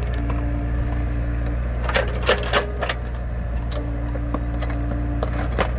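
Mini excavator's engine running steadily under load while its bucket digs at an acacia stump, with sharp cracking of roots and soil about two seconds in and again near the end. A steady whine comes in twice as the machine strains.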